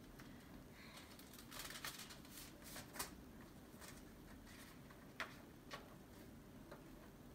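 Faint rustling of a paper letter being handled and unfolded, with a few short sharp clicks.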